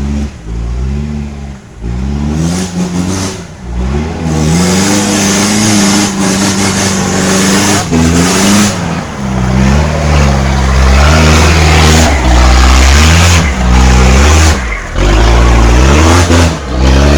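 A four-wheel-drive car's engine revving hard under load on a muddy hill, its pitch rising and falling over and over and dropping away briefly several times. A loud hissing noise rides over it from about four seconds in.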